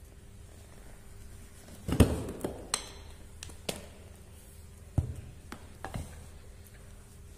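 Homemade steel tyre levers clinking and knocking against a motorcycle's chrome spoked rim as the tyre bead is pried off. There are several sharp clinks at uneven intervals, the loudest about two seconds in.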